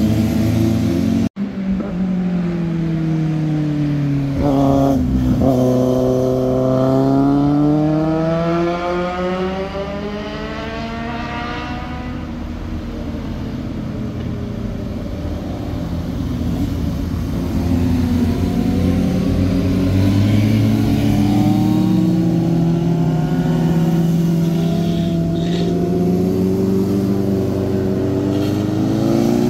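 Sport motorcycle engines revving past one after another, the pitch climbing and falling as the riders accelerate, shift gears and back off. The sound cuts out for an instant about a second in.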